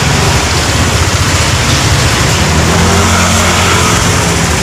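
Yamaha Aerox 155's single-cylinder scooter engine idling steadily during a tune-up, loud and close.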